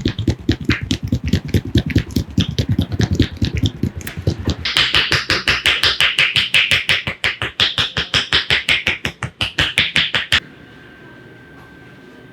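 Fast rhythmic hand strikes of an Indian head massage: palms and fingers slapping and tapping on the head at about five strokes a second. They are dull and heavy at first and turn sharper and brighter about four and a half seconds in. They stop abruptly about ten seconds in, leaving a faint steady hum.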